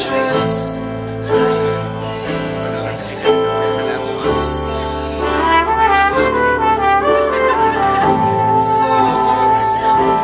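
Live band playing, with acoustic guitar, electric bass, drums and keyboard. A flugelhorn comes in about halfway through, plays a falling run of notes, then holds one long note.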